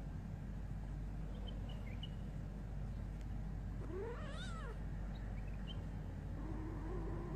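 A young kitten mewing twice: a short high mew that rises and falls about four seconds in, then a longer, lower wavering mew that starts near the end and rises in pitch. A steady low hum sits underneath.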